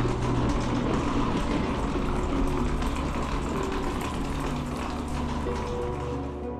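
Trailer sound design: a dense, rushing, hissing swell over sustained low music notes, thinning out near the end.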